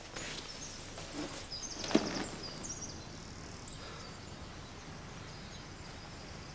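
Faint outdoor ambience with brief, high bird chirps, mostly in the first few seconds, and a single knock about two seconds in.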